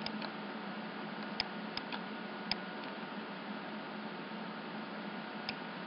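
A few sharp computer mouse clicks, spread over the first half and one more near the end, over a steady background hiss.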